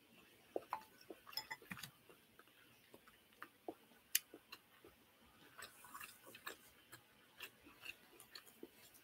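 A person chewing a mouthful of food with the mouth close to the microphone: soft, irregular wet clicks and lip smacks, one sharper smack about four seconds in.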